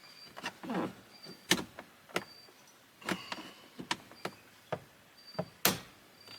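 Plastic dash trim bezel being pried off around a pickup's radio: irregular clicks and snaps as its retaining clips pop and the trim flexes, with two louder cracks, one about one and a half seconds in and one near the end.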